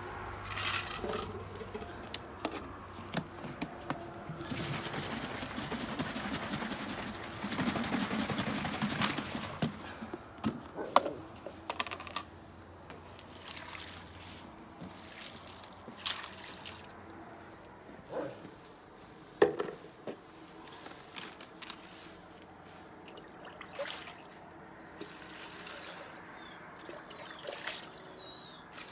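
Liquid poured into metal pots for several seconds, growing louder before it stops, followed by a few sharp clanks of metal pots and containers.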